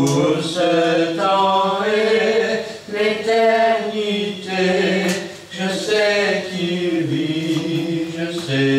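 A slow hymn being sung, with long held notes in phrases and short breaks for breath between them.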